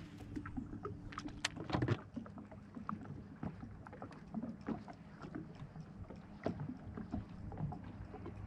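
Small irregular splashes and ticks of water lapping against a fishing boat's hull, over a low steady hum that stops about two seconds in with a louder knock.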